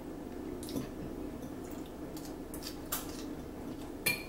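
Eating sounds at a table: forks clicking now and then against salad plates, with wet mouth sounds of chewing spinach salad; the sharpest click comes near the end. A steady low hum runs underneath.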